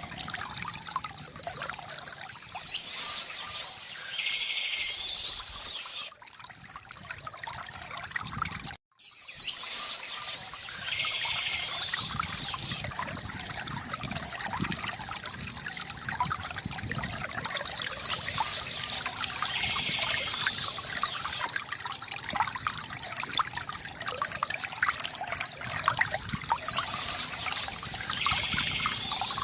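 Shallow stream water trickling and splashing steadily, with a bird's song repeating about every eight seconds. The sound cuts out for an instant about nine seconds in.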